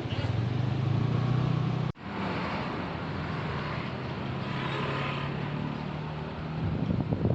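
An engine running steadily, with a sharp dropout about two seconds in before the same running sound resumes.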